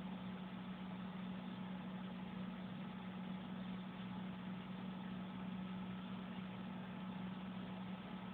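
Steady low hum with an even hiss behind it, unchanging throughout, with no distinct events.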